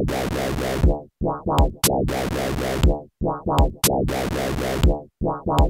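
Electronic music played on a Teenage Engineering Pocket Operator Sub: a synth bass pattern with drum-machine kicks that drop in pitch and sharp clicks, in a choppy rhythm with short gaps of silence about every second.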